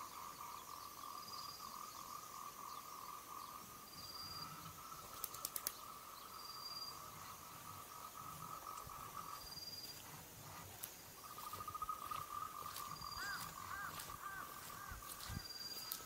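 Wild animal calls. A steady, fast trill breaks off for about a second and a half past the middle, and a short high note repeats every two to three seconds. A quick run of sharp clicks comes about five seconds in.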